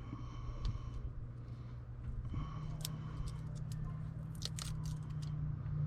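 Tire plug kit reamer rasping and crunching into the puncture in a car tire's rubber tread, in a run of quick scraping clicks, over a steady low hum that rises slightly in pitch about two seconds in.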